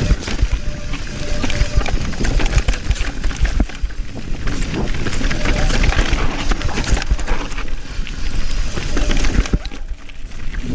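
Downhill mountain bike riding fast over a rocky dirt trail: tyres crunching over stones and the bike rattling and knocking over bumps, with wind rushing over the helmet-camera microphone.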